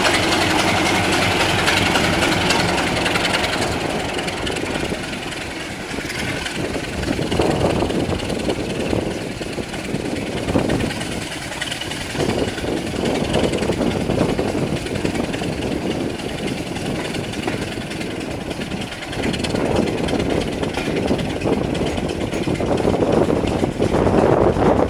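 Train on the move, heard from an open carriage window behind Class 26 diesel locomotive D5343: the steady drone of its Sulzer six-cylinder diesel engine is clear for the first few seconds. About four seconds in it gives way to the noisy rumble of the coaches running on the track, with wind buffeting the microphone.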